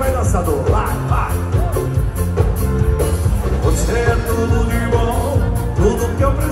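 A live band playing an upbeat rock-style song, with drums and bass keeping a steady beat and a voice singing over it.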